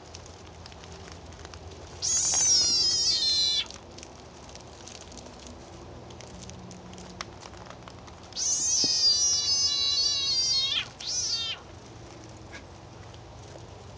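Cuban tree frog screaming in distress as a black racer snake eats it. There are three high, pitched screams, each dropping slightly in pitch at the end: one about two seconds in, a longer one about eight seconds in, and a short one right after it.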